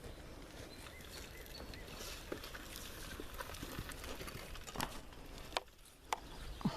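Quiet outdoor background with scattered light clicks and knocks, a few sharper knocks in the last two seconds.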